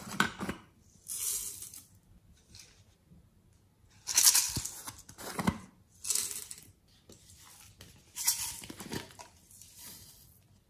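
Sticky slime pulling and tearing free of plastic containers as they are separated and tipped over a glass dish. It comes as about half a dozen short crackling rushes with pauses between them.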